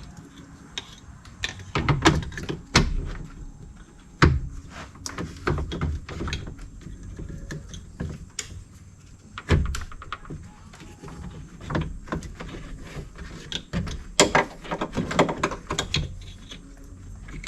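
Irregular knocks, clunks and rattles as a power window regulator motor is worked back into position inside a car door.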